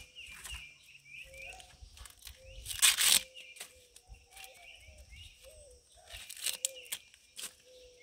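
Hands rubbing and pulling the silks off a shucked ear of sweet corn: brief rustling scrapes, the loudest about three seconds in and a few more near the end. Birds chirp repeatedly in the background.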